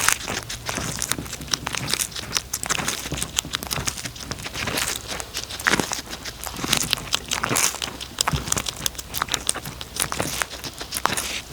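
A cat chewing crunchy food close to the microphone: a dense run of irregular crunches and crackles.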